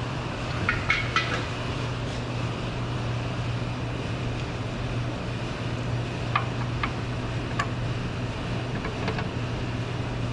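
A few light metallic clicks and clinks from the oil drain plug and tools at the oil pan, over a steady low hum.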